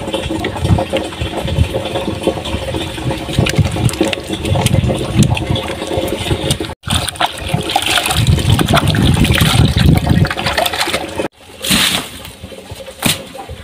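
Water splashing and pouring, over a low irregular rumble of handling or wind noise; the sound breaks off abruptly twice.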